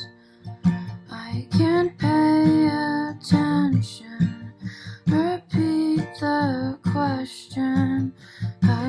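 A song playing: strummed acoustic guitar with a singer's voice carrying the melody.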